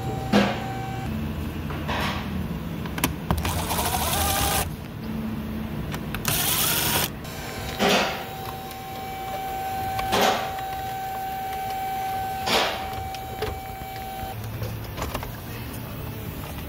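A cordless electric driver runs twice in short spells, backing out two bolts holding the plastic lower dash trim panel. Then the panel is worked loose by hand with sharp plastic clicks and knocks, while a thin steady tone runs for several seconds.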